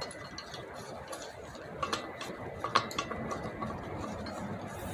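Light metallic clinks and ticks of a wheel-bearing installer tool being handled on its long threaded bolt, with two sharper clicks about two and three seconds in.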